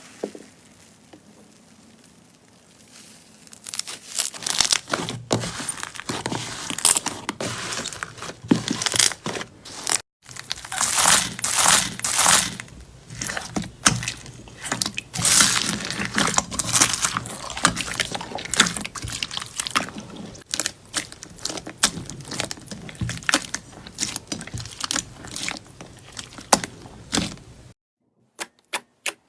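Slime being squeezed and pressed by hand: dense, irregular crackling and popping. It starts faint and builds after a few seconds, breaks off briefly about ten seconds in, and stops near the end.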